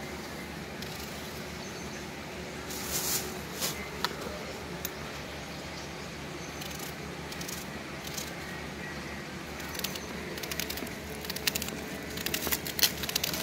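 Small kitchen knife ticking against an onion and dry onion skin rustling as the onion is peeled and sliced by hand. The light clicks come in a few clusters, most of them near the end, over a steady faint background hiss.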